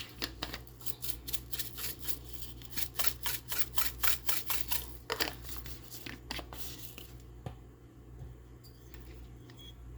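A spice container of crushed pepper shaken in a quick run of rattling shakes over chicken for about five seconds, then quieter handling with one click near the end.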